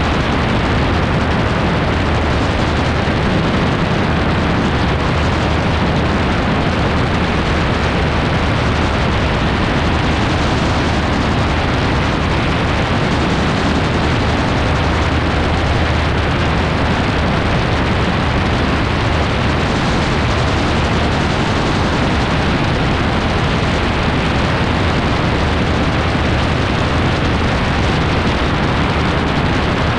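AutoGyro MTO gyroplane in flight: its engine and propeller running steadily under loud wind rush that buffets the microphone. The noise is constant and unbroken.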